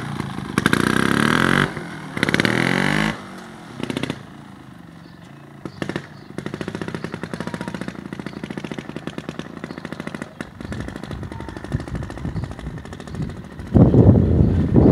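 Beta Rev 3 trials motorcycle engine revving in short bursts as it pulls away. It fades to a faint, even putter in the distance, then comes back loud near the end as the bike rides back.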